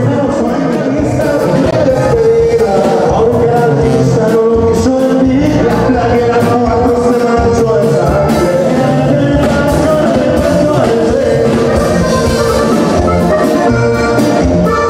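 Live norteño band music: a button accordion carrying a held melody over a twelve-string guitar, bass and drums, with a man singing.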